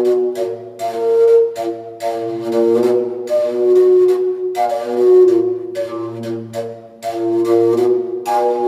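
Flute playing a slow melody of held notes with breathy attacks, over a low steady drone.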